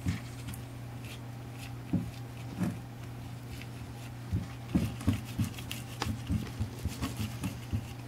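Gloved fingers dabbing and smoothing wet fire-resistant mortar over nichrome wire coiled on an iron barrel: soft, irregular taps and thumps, coming more often from about halfway on.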